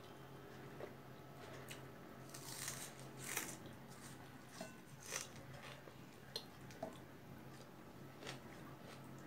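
Quiet eating sounds: fingers mixing rice on a plate, a mouthful taken and chewed, with scattered soft clicks and two brief louder bursts of noise around the third second, over a steady low hum.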